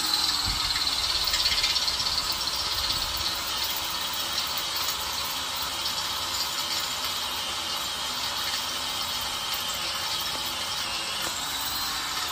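DeWalt cordless drill boring steadily into a steel bolt, the bit cutting metal with a continuous high squeal and hiss.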